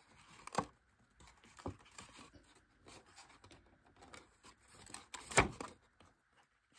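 Kraft cardstock being handled and folded: faint rustling with a few light clicks as tabs are pushed into slots, and one sharper click about five seconds in.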